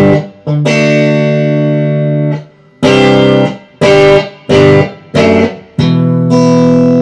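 Telecaster-style electric guitar on a clean tone, played through a Hughes & Kettner StompMan amp pedal into a 10-inch Marshall speaker cab. One chord rings for about two seconds, then four short stabbed chords, then a last chord is left ringing out.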